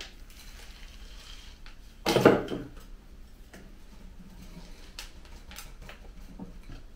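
Handling noise while repotting a tree: one short, loud scraping knock about two seconds in, then a few light clicks and taps.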